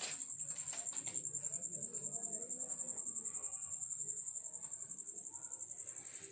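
High-pitched steady chirring that pulses several times a second, with faint low voices underneath.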